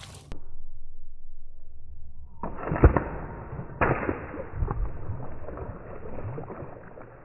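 A water balloon bursting under a child's shoe and the water splashing across the tiles, played back in slow motion so it sounds deep and drawn out, with two thuds about three and four seconds in.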